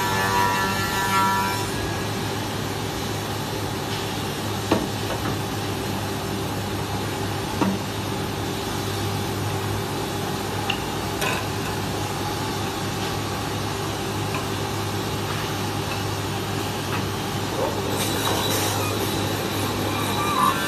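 Finger-jointing machine for wood rods running with a steady motor hum. A few sharp knocks come as the rods are handled and clamped. A higher whine sounds near the start and again at the end.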